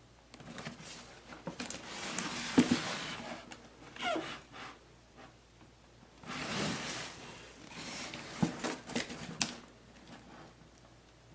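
Irregular rustling and scraping with scattered sharp clicks, from something being handled at close range; there is no steady motor hum or blade whoosh.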